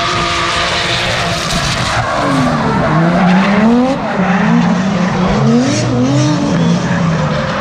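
Drift cars on a tandem run, engines revving up and down with the throttle over the screech of sliding tyres.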